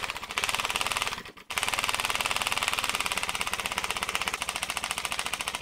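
3D-printed single-cylinder compressed-air engine with a copper-pipe exhaust running fast: a rapid, even stream of sharp exhaust pops that sounds like a motorcycle. It runs with its valve timing thrown off. The pops cut out briefly about a second in, then run on steadily.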